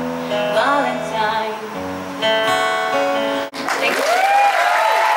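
A woman singing the last notes of a song to a strummed acoustic guitar, the chords held and ringing. About three and a half seconds in the sound cuts out for an instant, then audience applause with voices takes over.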